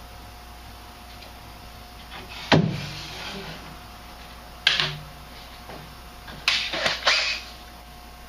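Knocks and clatters from tools and sheet metal being handled: a loud knock about two and a half seconds in, another near five seconds, then three quick clatters around seven seconds.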